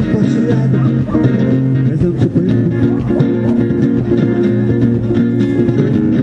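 Guitars playing an instrumental passage of a song, plucked notes over a steady low bass line, with no singing.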